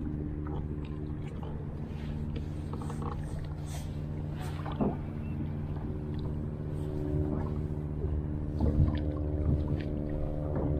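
Steady drone of a boat engine running, with a few brief knocks about five and nine seconds in.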